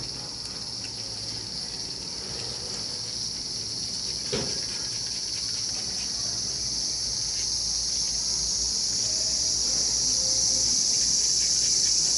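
A steady high-pitched insect drone that swells gradually louder, with a single light tool knock a little over four seconds in.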